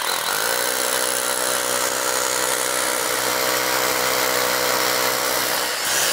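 Rotary hammer drilling into a concrete floor, running steadily throughout, boring the hole for a half-inch wedge anchor.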